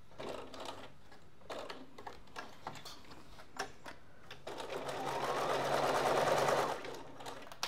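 Bernina sewing machine stitching through a vinyl-and-fabric bag panel for about two and a half seconds, starting a little past halfway and stopping near the end. Before it, a few light clicks and rustles as the panel is moved under the needle.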